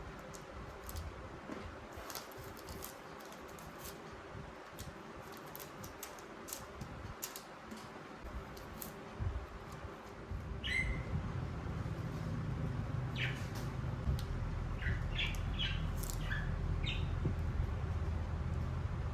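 Small birds chirping in short, high calls, several in the second half, over a steady low rumble that comes in about halfway through; light scattered ticks before that.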